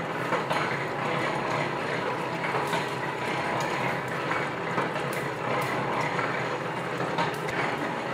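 4-bolt mini mustard oil expeller running while pressing seed, oil draining from its barrel cage. A steady mechanical rumble with irregular clicks and rattles.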